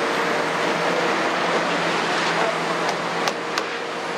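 Kobelco 350 excavator's diesel engine running steadily under load as it lifts a full bucket of soil and swings it toward a dump truck. A few sharp knocks come about three seconds in.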